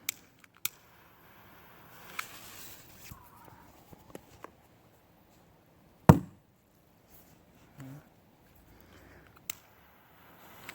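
A Shogun Bad Boy firecracker going off in water: one loud, muffled, deep thump about six seconds in. A few small clicks come before it.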